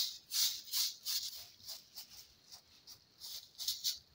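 Hand rubbing dry, papery seed husks on a cloth to thresh out the seeds: a crisp, dry rustling and crackling in repeated strokes, about two or three a second.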